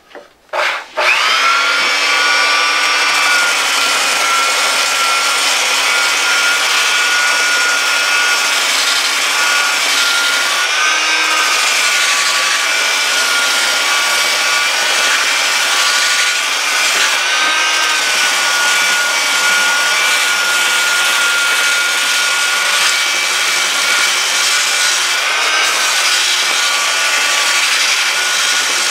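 Porter-Cable compact belt sander with an 80-grit belt starting up about a second in, then running steadily while sanding the face of a carved wooden sign. Its motor whine shifts pitch briefly twice as the load on the belt changes.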